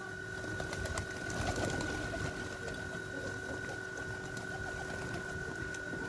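A flock of domestic pigeons cooing as they crowd together to feed, with scattered faint clicks of pecking and shuffling. A thin, steady high tone sits in the background.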